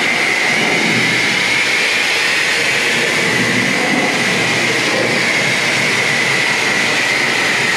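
A pressure-washer wand blasting a high-pressure jet of water onto a car's body panels, a loud, continuous hiss with a steady high tone running through it.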